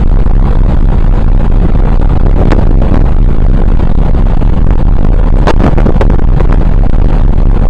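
Heavy wind buffeting the microphone on a ferry's open deck, a loud, constant low rumble over a rushing noise. A few sharp knocks come about two and a half, five and a half and six seconds in.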